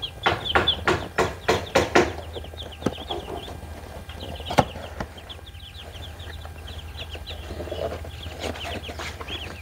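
Week-old Muscovy ducklings peeping inside a ventilated cardboard chick box, with many short, high, falling cheeps overlapping. A hand working the box's cardboard flaps adds a quick run of sharp scrapes and clicks in the first two seconds and one louder click about four and a half seconds in.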